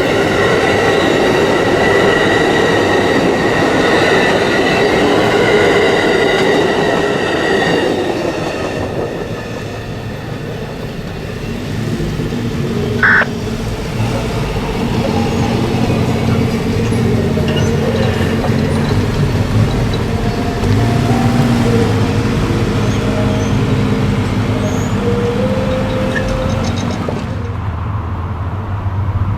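Amtrak passenger train rolling past, its wheels squealing in several steady high tones for about the first eight seconds. After that the rumble drops to a lower hum whose pitch steps up and down.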